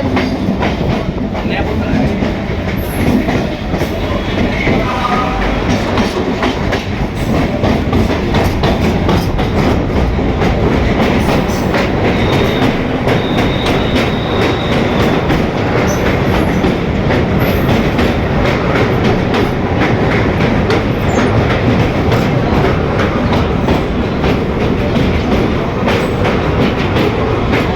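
Train running on a rail bridge, a steady loud rumble with the wheels clattering over the rails in a rapid clickety-clack.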